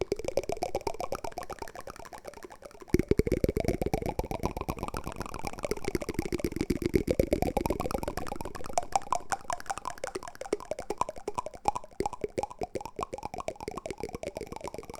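Wooden spoon used as an ASMR trigger: a fast, dense run of small clicks with a hollow ring that sweeps up and down in pitch in waves every few seconds, growing louder about three seconds in.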